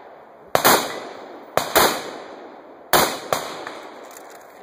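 Rifle shots fired in quick pairs: three double-taps about a second apart, each sharp crack trailing off in a short echo.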